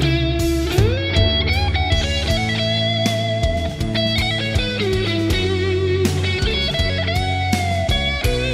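Live rock band: electric guitar playing a solo of long, sustained notes bent up and down in pitch, over bass guitar and drums.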